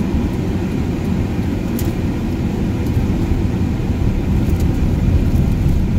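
Steady low rumble inside a vehicle's cab as it drives slowly along a dirt road, engine and tyres running, with a few faint ticks.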